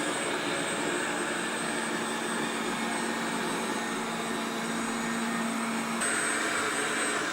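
Wolkinz COSMO robot vacuum cleaner running steadily, its suction motor and brushes making a whirring hum with a high whine. It winds down right at the end as the cleaning run finishes.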